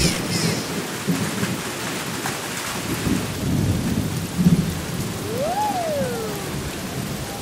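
Storm sound effects: steady rain with low rumbles of thunder through the middle. About five and a half seconds in, a single whistling tone rises and then falls.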